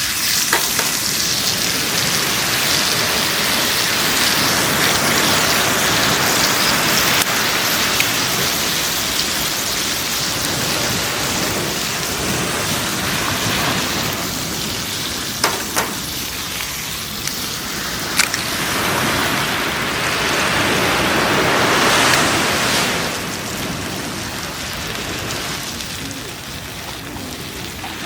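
Bacon and eggs sizzling in a frying pan over a campfire: a steady hiss that swells and fades, with a few sharp pops around the middle.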